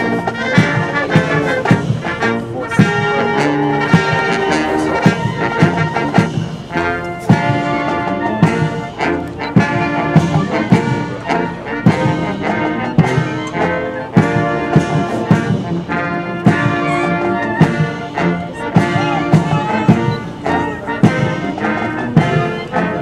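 Military brass band playing a march: brass instruments over a steady drum beat.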